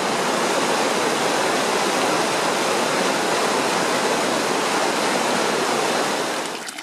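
Fast-flowing mountain river rushing over rocks: a steady, loud rush of white water that fades down near the end.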